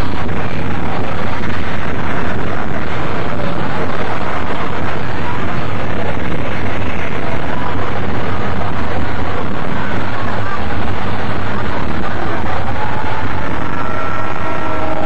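Loud, steady rumbling noise of the Earthquake ride's simulated earthquake special effects, one unbroken wash of sound with no pauses.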